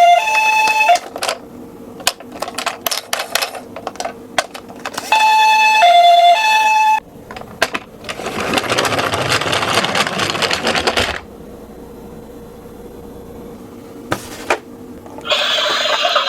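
Toy ambulance's electronic two-tone siren sounding twice, each time in short bursts of alternating high and low notes. Between the bursts come sharp clicks and clacks of small toy cars, then a few seconds of rattling noise.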